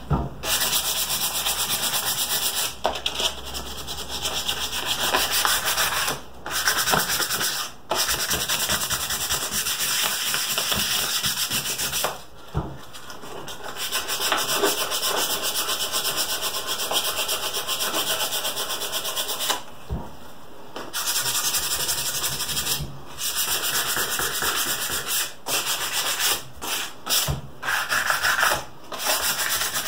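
Small wooden piece being sanded by hand with 150-grit sandpaper: quick back-and-forth scratching strokes, with brief stops several times, more often near the end.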